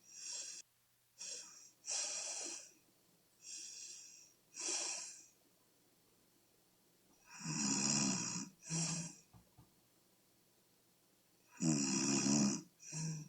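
A woman with sleep apnea snoring in her sleep: a few short, hissing breaths, then two louder, rougher snores with a low rattle, each about a second long, one about two-thirds of the way through and one near the end.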